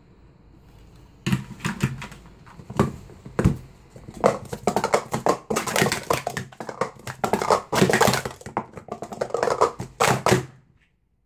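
Plastic sport-stacking cups (Speed Stacks) being stacked and unstacked at speed on a StackMat: a rapid, uneven clatter of cups clacking against one another and the mat. It starts about a second in and stops abruptly near the end.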